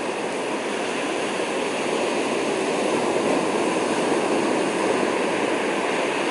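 Sea surf breaking and washing up a sandy beach: a steady rushing wash of waves.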